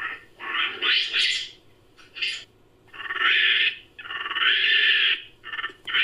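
Made-up animal calls created as the sound effect for a fictional creature, the common long-tailed macaque. A run of short calls comes first, one of them rising in pitch about a second in, followed by two longer calls in the second half.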